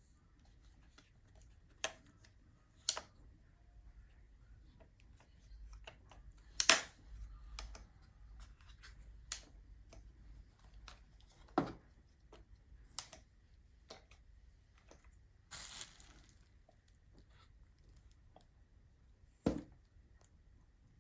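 Scattered clicks and knocks of a drone and its packaging being handled during unboxing, with a brief crinkle of packaging about three quarters of the way through.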